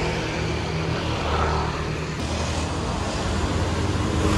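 Street traffic noise: motor scooter engines running with a steady low hum.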